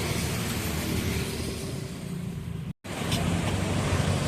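Road traffic: motor vehicle engines running with a steady low hum and street noise, broken by a momentary silent gap about two-thirds of the way through.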